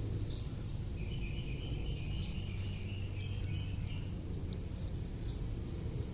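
A kitten chewing raw suckermouth catfish, with scattered short crunching clicks, over a steady low background rumble. A high, evenly pulsed chirping starts about a second in and stops about three seconds later.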